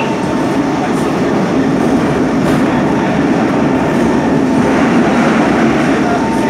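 SMRT C151 metro train running, heard from inside the car: a steady rumble of wheels on rail with the whine of its traction motors.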